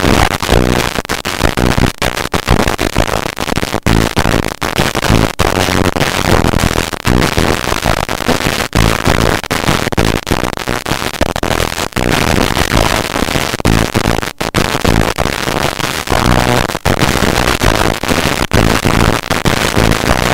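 Radio receiver hissing and crackling with static, cutting out briefly again and again, with a low buzz underneath: the station's signal breaking up as its transmitter mast goes down.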